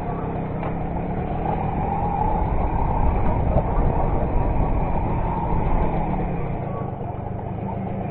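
Old Derbi Variant moped's small two-stroke engine running while it rides over a rough, leaf-covered dirt trail, with a rumbling low end; the engine note eases off about seven seconds in as the bike slows.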